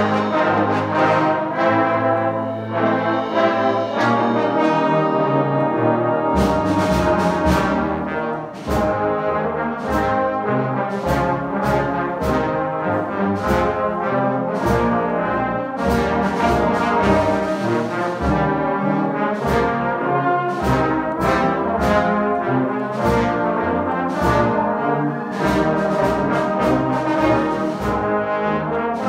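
A trombone choir playing: held brass chords at first, then from about six seconds in a lively rhythmic passage over a steady beat of sharp hits and strong bass notes.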